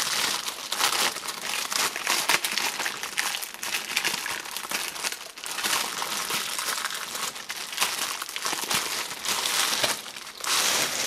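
Clear plastic bag crinkling and rustling continuously and irregularly as a rack-mount patchbay is worked out of it.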